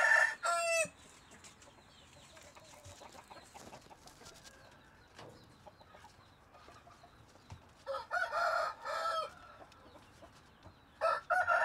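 Rooster crowing three times: once at the start, once about eight seconds in and again near the end, each crow lasting about a second and a half, with faint background noise between.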